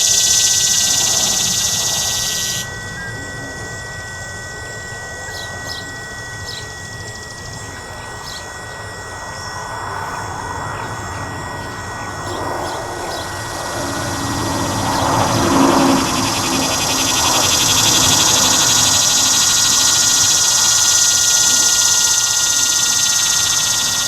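Steady high-pitched electronic siren tones, one strong and a fainter one just below it, from a Whelen WPS-3016 test that is failing and only buzzing. Over them, a loud high hiss cuts off about three seconds in and builds back in the second half, and a low rumble swells and fades near the middle.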